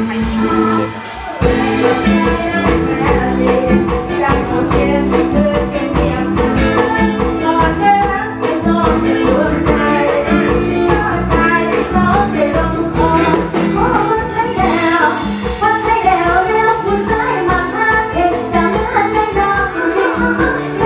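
A woman singing into a microphone over a backing track with a steady beat.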